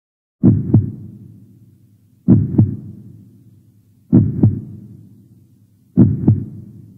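Heartbeat sound effect: a slow, deep double beat (lub-dub) four times, about every two seconds, each pair trailing off in a short echo.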